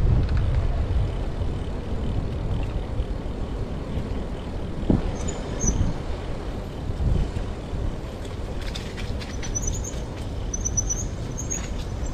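Outdoor city ambience: a steady low rumble of traffic with wind, and small birds chirping in short, quickly repeated high notes from about halfway through.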